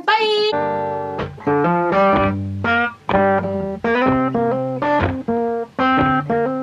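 Outro music: a plucked string instrument playing a rhythmic run of short notes over a bass line, with no vocals.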